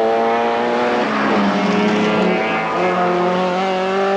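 Rally car engine running hard at high revs as the car passes: the engine note climbs, drops away about a second in, then climbs again near the end.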